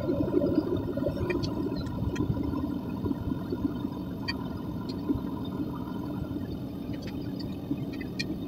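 Propane-fired Devil Forge melting furnace running, its burner making a steady rushing noise, with scattered small sharp crackles and ticks over it.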